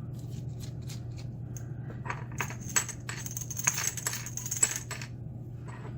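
Small metal screwdriver bits clicking and clattering as they are handled and sorted, with a high metallic ringing in the busiest stretch near the middle.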